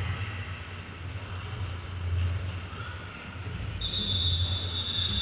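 Roller skate wheels rolling across a hall floor, a low steady rumble. About two-thirds of the way in, a steady high-pitched tone starts and holds.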